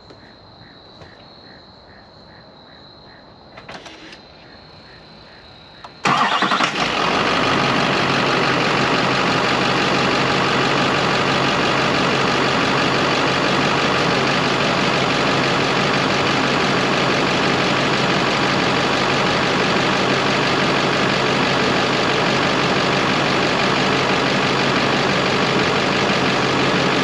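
LMM Duramax 6.6-litre turbo-diesel V8 in a 2009 Chevrolet Silverado 3500 starting up about six seconds in, on its first start with a newly fitted S&B cold air intake. It then settles into a steady idle.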